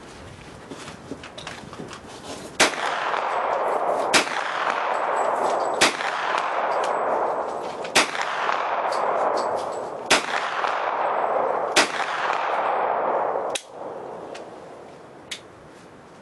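Seven shots from a KelTec Sub-2000 carbine chambered in .40 S&W, fired one at a time about every one and a half to two seconds, each followed by a long echo that rolls off the range. A few faint clicks come before the first shot.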